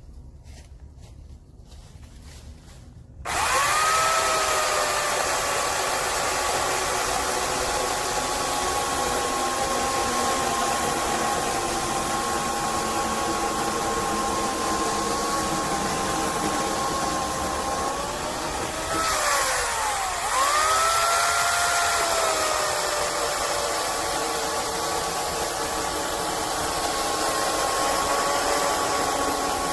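Craftsman 16-inch 12-amp corded electric chainsaw motor switching on about three seconds in and running with a steady high whine. Around two-thirds of the way through, its pitch drops and then swings back up as the motor slows and speeds up again.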